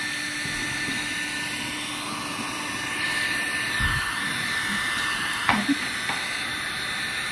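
Electric heat gun running steadily, its fan blowing hot air with a steady high whine, used to shrink plastic seals onto jar lids.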